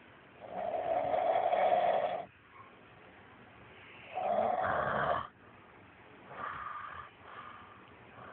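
A man snoring in a drunken sleep: two long, loud snores about three seconds apart, then softer, shorter snoring breaths near the end.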